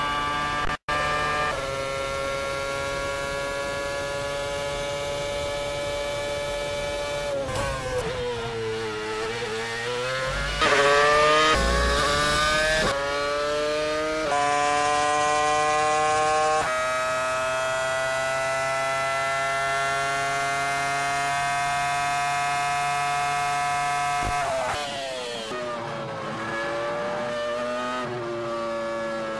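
Formula 1 onboard engine sound spliced from successive seasons, each gear change cutting to an older car: V8s giving way to V10s. The high-revving note climbs steadily through each gear and drops sharply at every upshift. It sinks through a run of downshifts under braking about a third of the way in and again near the end.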